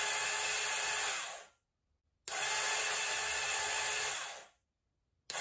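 Rebuilt starter motor from a 1986 Honda FourTrax 350 ATV, clamped in a vise and powered straight from a battery, spinning freely with a steady whine: this is the bench test after the rebuild. It runs in three bursts: the first cuts out and spins down about a second and a half in, the second runs from about two seconds to four and a half, and the third starts near the end.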